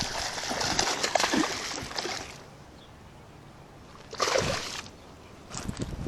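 Water splashing and sloshing: a longer rush at the start, then two short splashes near the end.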